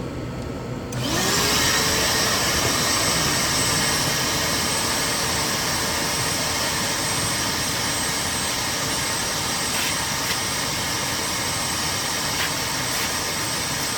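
Shop vac switched on about a second in, its motor spinning up with a rising whine and then running steadily while vacuuming dust from a commercial refrigerator's condenser coil.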